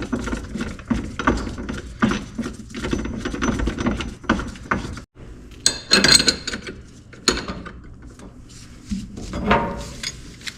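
Metal tool parts knocking and clinking as a wheel bearing press tool is handled and threaded onto the rear hub, with a run of irregular light knocks, then a few sharper metallic clanks in the second half.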